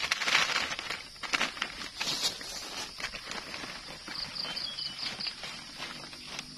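Freshly picked wild mushrooms poured from a basket into a plastic crate: a pattering of soft knocks and rustles, heaviest in the first couple of seconds and thinning out after that. Insects buzz steadily under it, with a short run of chirps about four seconds in.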